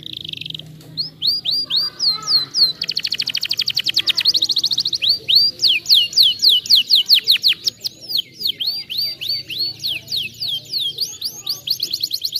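Domestic canary singing a long, continuous song. About three seconds in it breaks into a very fast roll of repeated notes, then runs of quick downward-sweeping notes.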